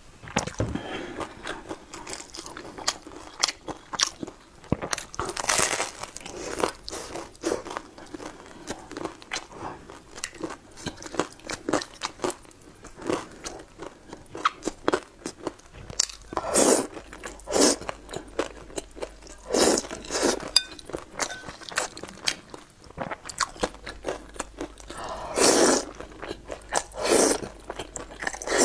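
Close-miked eating: chewing and crunching of a crisp sesame flatbread and wide flat noodles, with many small mouth clicks and several louder slurps about a second long.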